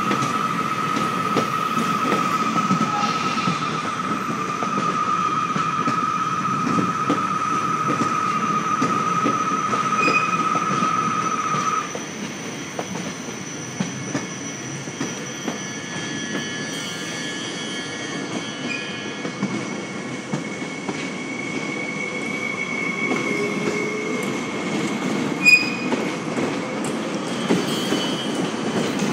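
Double-deck passenger trains rolling slowly over the station's curved tracks and points, with a steady high wheel squeal that stops suddenly about twelve seconds in. After that there is rolling rumble with fainter squeals and one short clank near the end.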